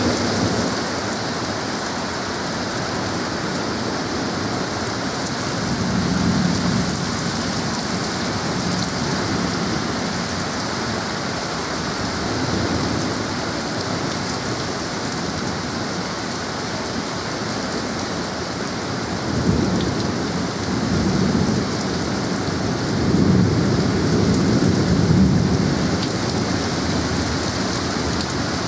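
Steady heavy rain pouring down in a thunderstorm, with several low rumbles that swell and fade; the loudest comes about three-quarters of the way through.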